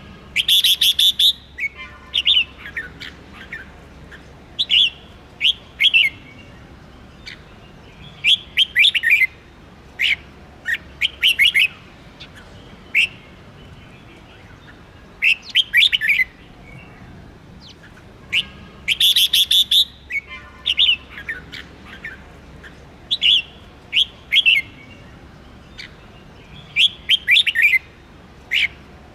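Red-whiskered bulbul singing: short bursts of quick, clear chirping notes, a phrase every second or two with brief pauses between.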